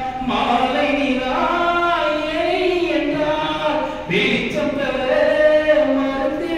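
A man's voice singing in long held notes into a microphone, heard through a public-address system.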